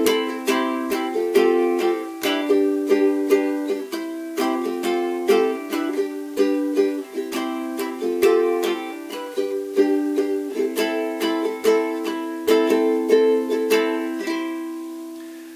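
A Cordoba ukulele strummed in a steady rhythm of chords, an instrumental break with no singing. Near the end the strumming stops and the last chord rings and fades.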